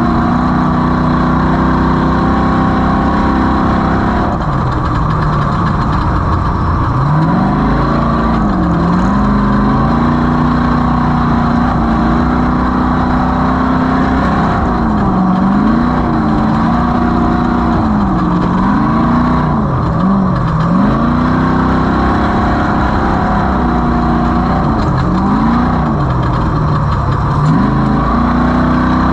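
Off-road race vehicle's engine running hard, its revs dropping and climbing back again and again as the throttle is lifted and reapplied over rough desert terrain.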